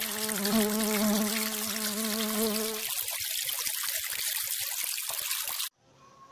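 Buzzing of a flying bee, a wavering drone that stops about halfway through, over a steady hiss that runs on and cuts off suddenly near the end.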